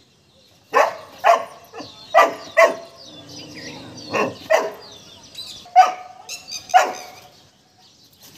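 Golden retriever puppy barking at a peacock perched on the wall above it: about ten short, sharp barks in an irregular run, with a brief gap a little after three seconds in.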